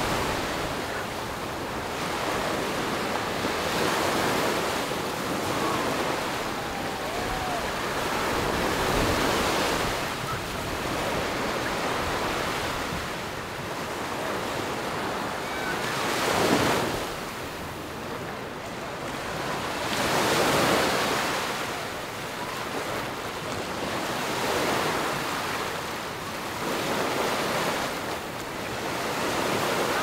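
Ocean waves breaking and washing up the beach, the surf swelling and falling back every few seconds, with one sharper break about halfway through.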